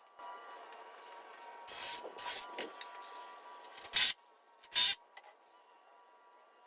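Power tool driving fasteners into the wooden bench's back-rest boards, running in short bursts: a steady whine for the first few seconds, then two short, loud bursts about four and five seconds in.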